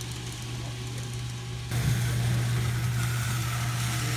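N scale model passenger train of E8A diesel units running on the layout: a steady low hum with a rushing haze of wheels on rail. It gets suddenly louder about two seconds in, when the train is close by.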